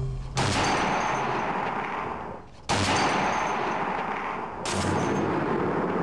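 Barrett M107 .50-caliber semi-automatic rifle fired three times, about two seconds apart. Each shot is a sharp crack followed by a long echoing decay.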